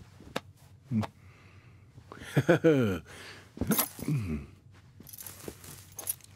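A cartoon man's wordless voice makes two short sounds that slide down in pitch, with a few small clicks before them and a brief rustle near the end.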